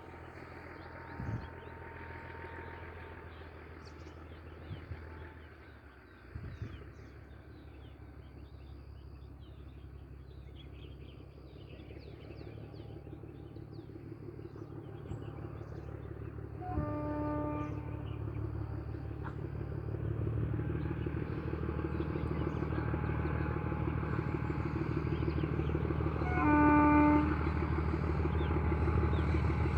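ZDM4A narrow-gauge diesel locomotive approaching, its engine hum growing steadily louder, sounding its horn twice: a short blast about halfway through and a louder one near the end.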